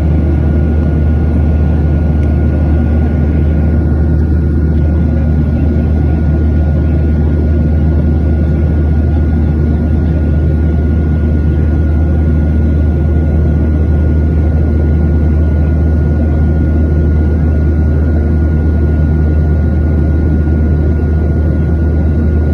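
Steady cabin noise of a Southwest Airlines Boeing 737-700 in flight, heard from a window seat beside its CFM56 turbofan engine: a loud, even low rumble with a thin steady whine above it.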